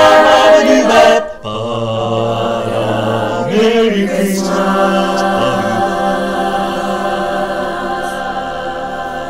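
A cappella vocal group of mixed young voices singing. A loud sung passage breaks off about a second in, then the voices move into softer, long-held chords that slowly fade.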